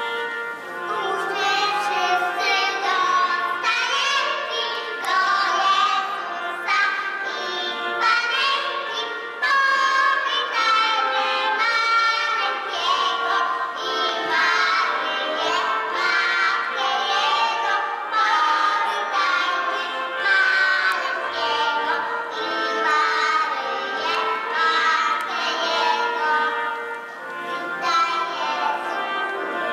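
Children singing a song together over instrumental accompaniment.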